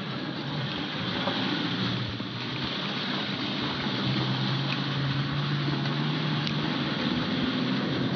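A vehicle on the move: a steady low engine hum under an even hiss of tyre and road noise.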